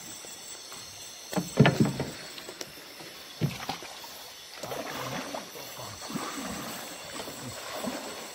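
River water splashing and sloshing as people wade through it. The loudest splashes come about a second and a half in, with a shorter one near the middle and a run of irregular sloshing in the second half.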